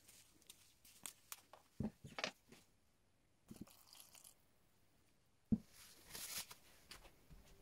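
Faint handling sounds: small clicks and knocks of a plastic tub and bottle, clear liquid poured into the plastic tub about halfway through, then a thump and a short rustle near the end.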